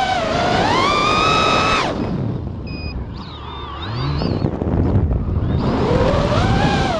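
An FPV quadcopter's electric motors and propellers whining, heard through its onboard camera: the whine climbs in pitch, cuts off sharply about two seconds in, leaving a low rumble, then comes back and climbs again near the end. The propellers are beat up.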